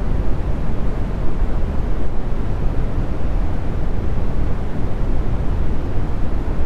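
Steady brown noise: an even, deep rumbling hiss weighted to the low end, with nothing else in it.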